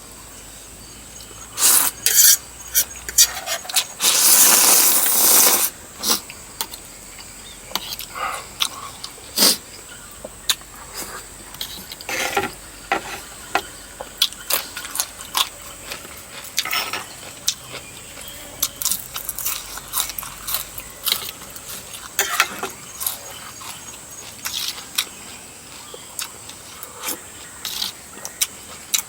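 Eating sounds from a bowl of noodles in coconut curry with chicken feet: many short clicks and knocks of utensils against the bowl and chewing, with a loud rushing noise lasting about a second and a half around four seconds in.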